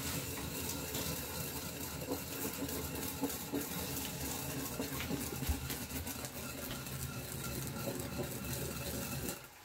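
Sesame seeds being ground in a suribachi mortar with a long wooden surikogi pestle: a steady, dense scraping of seeds against the grooved bowl, stopping shortly before the end.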